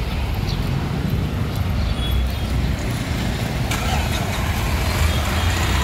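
Street traffic: the steady low engine rumble of a small goods truck passing close, along with other vehicles on the road.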